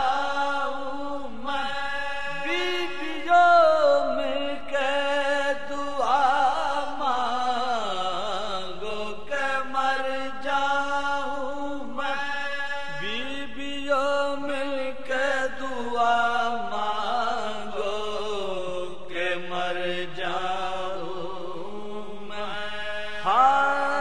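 Male voice chanting an Urdu marsiya in soz style, a slow melodic recitation of long held notes that bend and waver in pitch.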